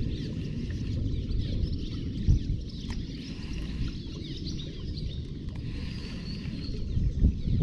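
Many small birds chirping and twittering rapidly, over a steady low rumble of wind buffeting the microphone.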